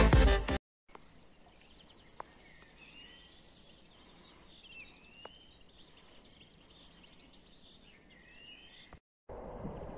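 The tail of electronic dance music cuts off half a second in. After it comes faint birdsong: small chirps and several rising and falling whistled calls over quiet outdoor background, with a couple of faint clicks. Near the end the sound cuts to a louder, even outdoor rushing noise.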